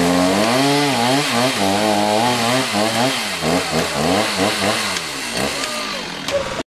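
Handheld two-stroke power tool engine running hard while cutting vegetation, its pitch rising and falling over and over as the load changes.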